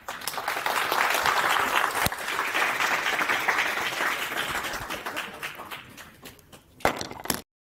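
Audience applauding, loudest at first and then fading over several seconds. Two sharp knocks near the end, then the sound cuts off.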